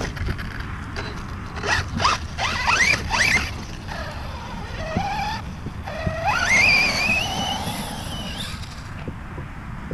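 Electric motor of a Reely Raptor 6S RC car running on a 4S battery, whining up in pitch in several quick throttle bursts, then in one long rising run-up as the car accelerates away over dirt.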